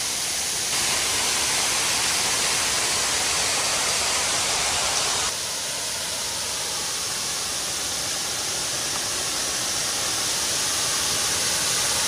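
Waterfall rushing, a steady even noise of falling water that shifts abruptly in level twice, under a second in and about five seconds in.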